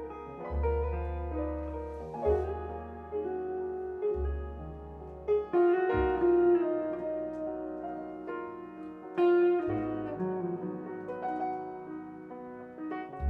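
Live jazz trio of piano, semi-hollow electric guitar and double bass playing a tune, piano notes over long low bass notes that change every second or two.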